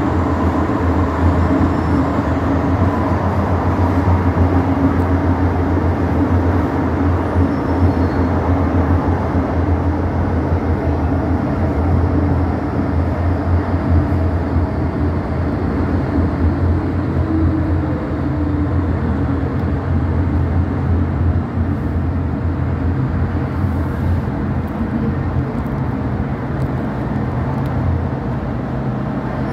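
Inside a Metro-Cammell M-Train electric multiple unit running underground: a steady low hum with wheel-on-rail rumble, easing a little in the second half as the train runs into a station.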